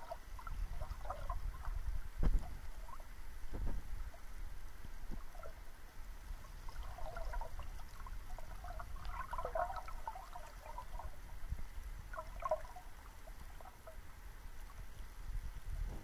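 Cabin noise of a parked Boeing 757 airliner at the gate: a steady low rumble with faint, indistinct sounds in the middle range, and two dull thumps a couple of seconds in.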